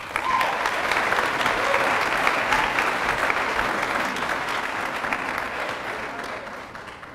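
Audience clapping, starting all at once and dying away over the last couple of seconds.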